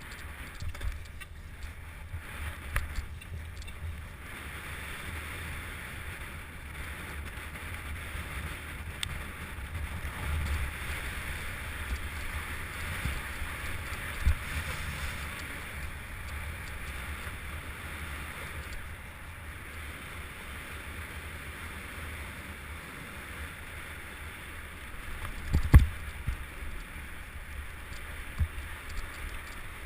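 Wind rushing over the microphone while a mountain bike runs downhill over rough ground, with scattered knocks and one loud thump a few seconds before the end.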